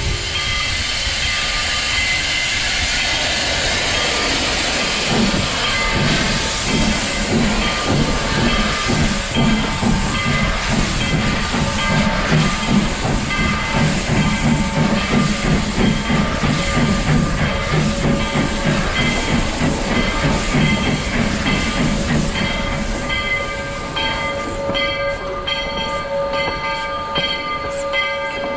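Narrow-gauge steam locomotive getting under way: steam hissing at first, then a steady run of rhythmic exhaust chuffs that fades out a few seconds before the end.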